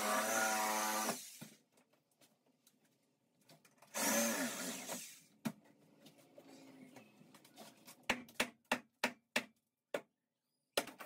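A handheld power tool runs in two short bursts, one at the start and one about four seconds in, its motor pitch rising and falling. From about eight seconds on comes a string of sharp knocks and cracks as broken drywall and debris are pulled away from the wall studs.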